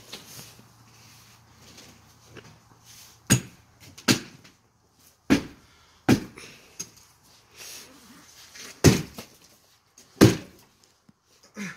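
Heavy tool blows striking the wooden framing of a trailer add-on room during demolition: about seven sharp, loud knocks at irregular intervals of a second or so.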